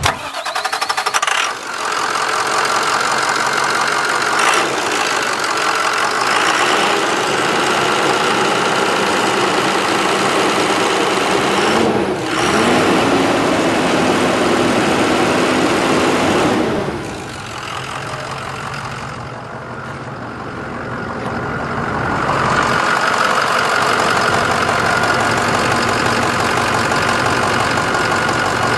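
International DT466 inline-six diesel engine running at idle, heard up close at the open engine bay, its level dipping for a few seconds past the middle.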